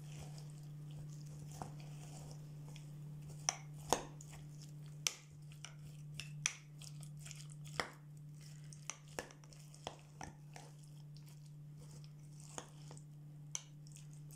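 Chopped onion and honey being stirred with a spoon in a jar: irregular clicks and taps of the spoon against the jar, with soft crunching of the onion, over a steady low hum.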